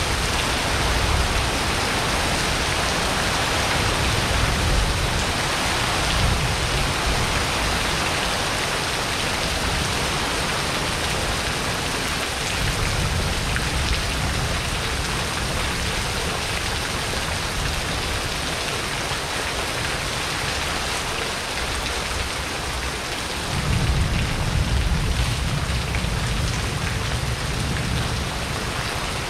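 Heavy tropical rain falling steadily on a patio and streaming off a roof edge, with low rolls of thunder several times, the strongest starting near the end.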